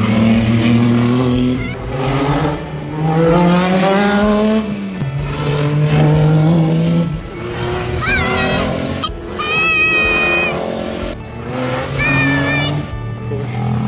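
Hillclimb race cars accelerating past one after another, their engines revving hard. One engine note climbs and then drops suddenly at a gear change about five seconds in.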